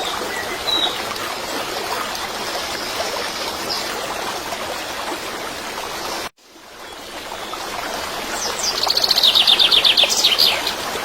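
Steady running water, like a stream, with birdsong: a short chirp near the start, and near the end a fast trill of repeated high notes. The sound cuts out briefly past the middle and fades back in.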